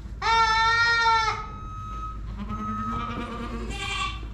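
Young buck goat giving one loud, long bleat of about a second right at the start, protesting while its infected scrotum is scrubbed, followed by quieter, fainter calls.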